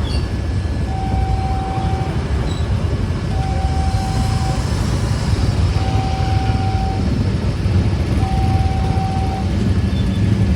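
Railway level-crossing gate alarm beeping: one steady mid-pitched tone, a little over a second long, repeating about every two and a half seconds, four beeps in all, over a loud low vehicle rumble.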